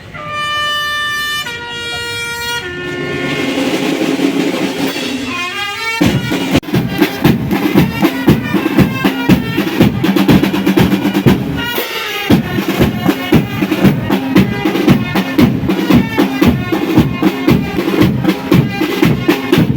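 Music: a few held notes stepping down in pitch, a quick rising run, then a steady, driving drum beat from about six seconds in.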